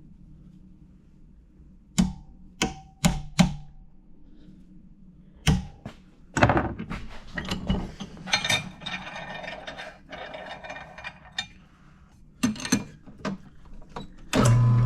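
Steel pushrod being worked on for straightening: sharp metal knocks and clinks, several with a short metallic ring, then a stretch of rattling and scraping in the middle. Near the end an electric motor starts up with a steady hum.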